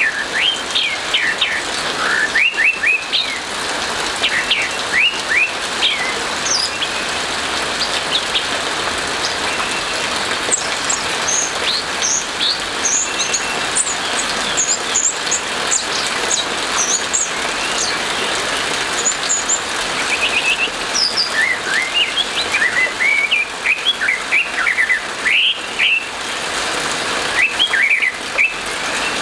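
Orange-headed thrush singing in repeated clusters of quick, sweeping whistled notes over a steady hiss of rain.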